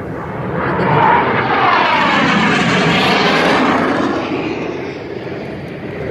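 Jet aircraft of an aerobatic display team passing over. Their jet noise swells about a second in and holds for a few seconds with a sweeping, phasing sound, then fades near the end.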